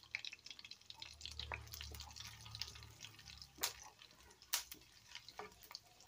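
Cashews, cumin seeds and black peppercorns frying in ghee on low heat: faint scattered crackling and popping as the spices temper, with two louder pops about halfway through while a spatula stirs the pan.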